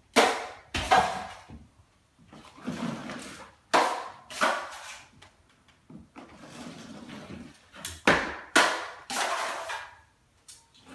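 Drywall knife scraping joint compound across a ceiling in repeated strokes, about one a second, while a level 5 skim coat is applied.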